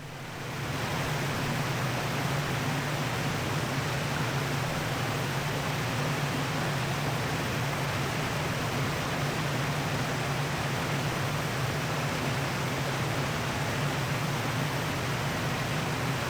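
Steady, even rushing noise that fades in over the first second and then holds without change.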